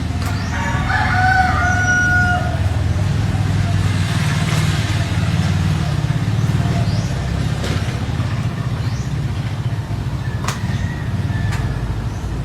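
A drawn-out animal call about a second in, with two clear tones, over a steady low rumble.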